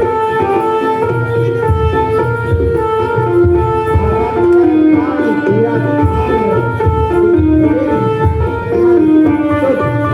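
Live jaranan ensemble music: a wind instrument plays a melody of held notes stepping up and down over continuous hand-drum patterns.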